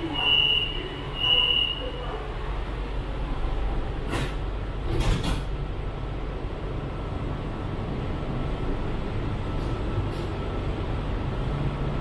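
Metro train door-closing warning: two high steady beeps in the first two seconds, then the sliding car doors shut with sharp knocks about four and five seconds in. A steady low hum from the train runs underneath.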